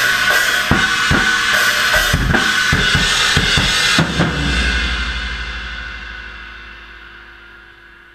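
Death metal drumming on a kit: dense bass drum, snare and cymbal hits, stopping about four seconds in on a final crash whose cymbals ring on and fade away.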